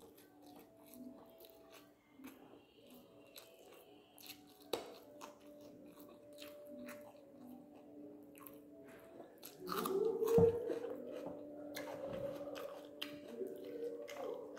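Close-up eating sounds: a person chewing mouthfuls of string hoppers (idiyappam) taken by hand, with many small wet mouth clicks and smacks. A louder steady drone comes in about ten seconds in.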